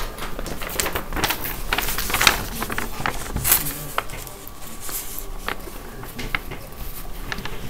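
A sheet of paper rustling and crinkling as it is handled and moved right up against the microphone, with irregular crackles and several louder rustles.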